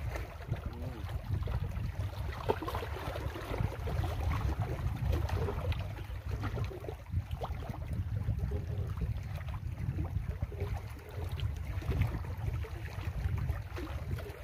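Wind buffeting the microphone in a steady, fluctuating low rumble, with lake water lapping at the shore rocks.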